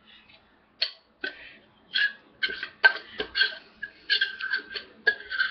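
A metal spoon scraping and tapping tuna out of an opened tin can: a run of short, sharp scrapes and clinks, some with a thin metallic ring. The strokes start about a second in and come quickly, several a second, from about two seconds on.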